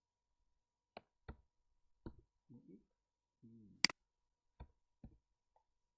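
Scattered clicks of a computer mouse and keyboard, with one louder, sharper click about two-thirds of the way through.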